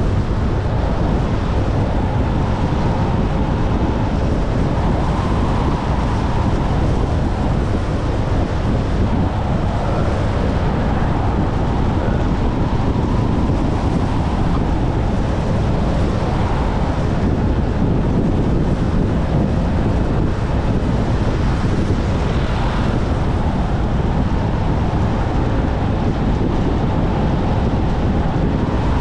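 Wind rushing over the camera microphone on a moving scooter, with the scooter's engine running underneath; steady and loud throughout.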